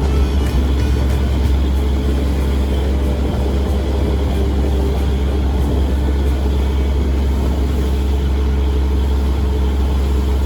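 Fishing boat's engine running steadily: a constant low drone with no change in speed.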